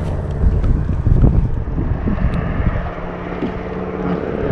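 Wind buffeting the microphone in gusts, over a steady low hum.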